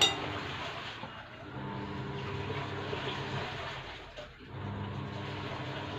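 Steady low mechanical hum, dipping briefly twice, with a sharp click right at the start.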